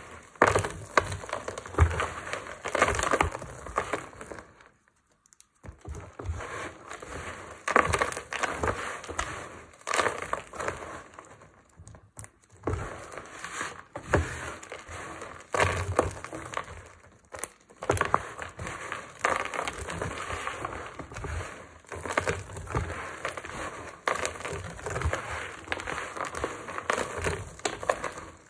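Dry lavender, baby and tar soap chunks and shavings crushed and crumbled between bare hands: a dense, crunchy crackle in repeated squeezes, with a short pause about five seconds in.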